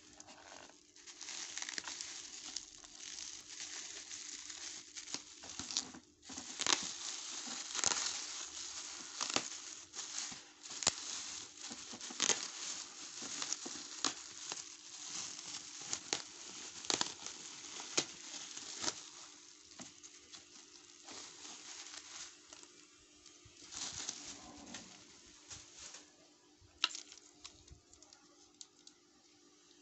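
Plastic bubble wrap crinkling and rustling as it is handled and pulled off a wrapped object, dense crackles for most of the first two-thirds, then sparser, with a sharp crackle near the end.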